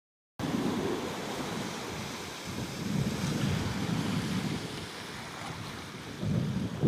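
Sea wind blowing on the microphone over a steady hiss of surf, with gusts that swell and fade, one stronger near the end.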